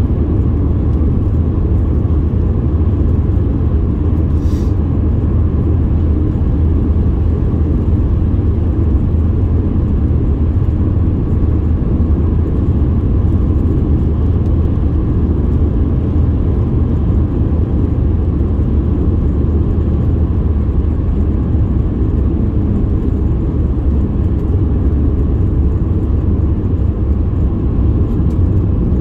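Steady low rumble of a road vehicle driving at constant speed, with an even level and no changes in pitch.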